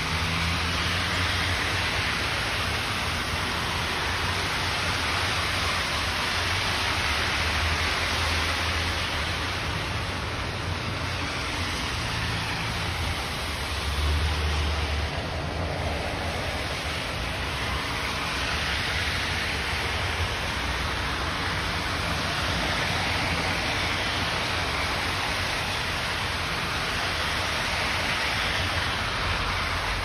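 Steady hiss of traffic on a wet, slushy road, with a low rumble underneath and slow swells as vehicles pass.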